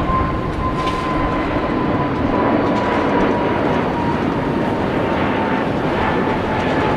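Jet airliner's engines running at take-off power: a steady roar with a whining tone that sinks slightly in pitch.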